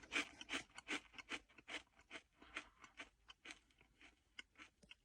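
Bugles corn snacks being chewed close to the microphone: a run of crisp crunches, about three or four a second, thinning out and fading as the mouthful goes down.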